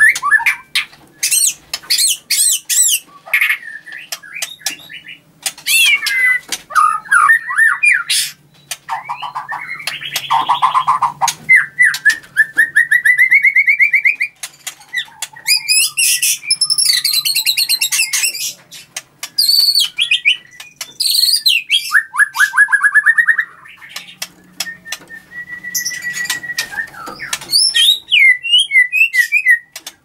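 White-rumped shama (murai batu) singing a loud, varied song of clear whistled notes, fast repeated-note trills and harsh chattering phrases, broken by short pauses.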